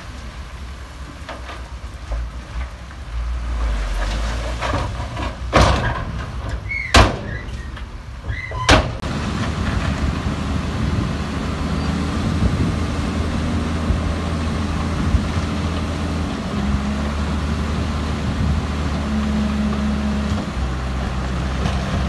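Heavy construction machine's diesel engine running steadily, louder from about two-fifths in with a shift in pitch later on. Three sharp bangs come close together in the first half.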